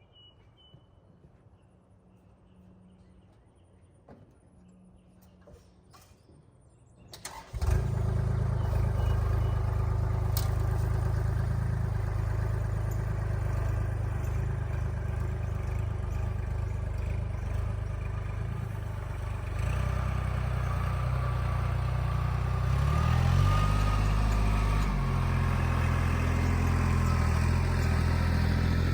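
An engine starts abruptly about seven seconds in and then runs steadily at a low idle, a little louder from about two-thirds of the way through, with a brief dip and rise in engine speed near the end.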